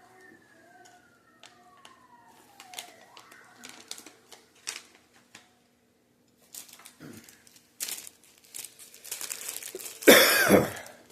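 Plastic packaging crinkling and rustling in handling, a few scattered clicks at first, then a dense crackle that is loudest about ten seconds in.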